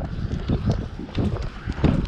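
Running footsteps on asphalt, a steady rhythm of low thuds at a jogging pace.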